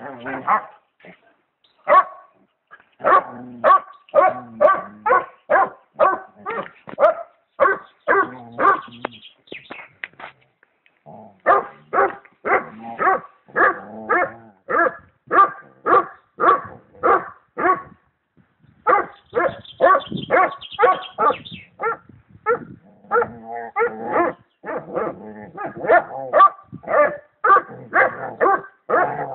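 Basset hound barking over and over, about two barks a second, in bouts separated by short pauses.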